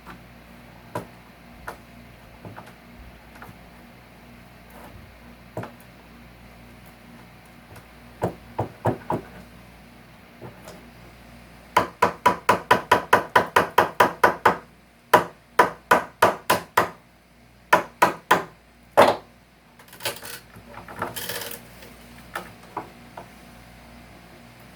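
Hammer striking nails in old couch-frame wood while nails and staples are knocked out: a few scattered taps, then a fast run of about five blows a second for nearly three seconds, followed by slower single blows. A short scraping sound comes near the end.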